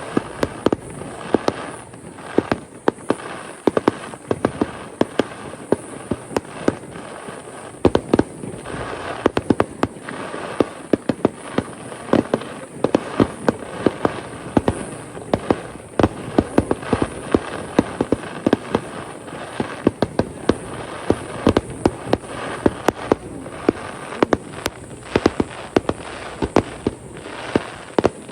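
Aerial fireworks going off in rapid, irregular succession: many sharp bangs of shell bursts mixed with crackling.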